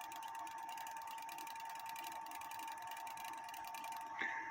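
Cuckoo clock count-wheel movement ticking in a fast, even run of faint clicks, with a thin steady tone underneath. The movement runs but the minute wheel does not turn, because the compression washer and pin are off.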